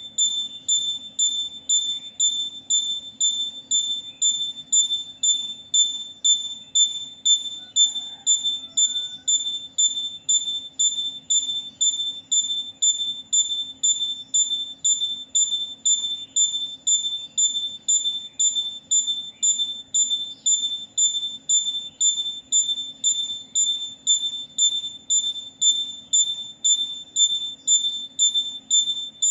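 A high-pitched tone beeping in a steady rhythm, about one and a half beeps a second, each starting sharply and fading quickly, over a faint steady low hum.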